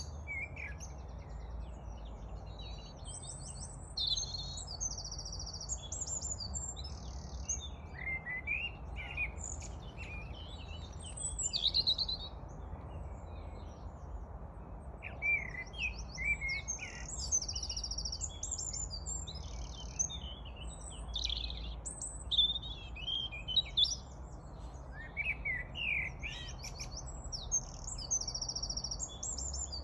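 Birds singing, a continuous run of varied chirps, trills and warbled phrases, over a steady low background rumble.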